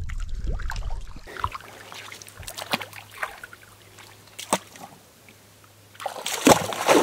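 A small brook trout splashes and slaps at the lake surface while it is played on a fly line, making scattered light splashes. About six seconds in comes a loud splashing scramble as the angler falls at the water's edge.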